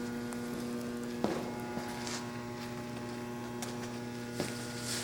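Electric motor and drive of a sheet-metal duct beading machine running with a steady hum, with a few faint clicks.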